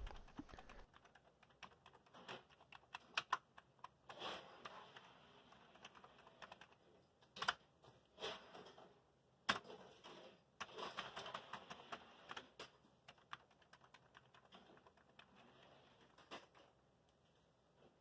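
Faint, irregular keystroke clicks on a Commodore 128 keyboard: single key presses with pauses between them, and two sharper clicks near the middle.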